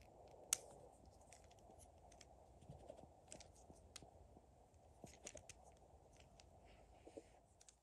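Faint clicks and rubbing of LEGO Technic plastic parts being handled and fitted together, a rubber band stretched over them. One sharp click about half a second in is the loudest.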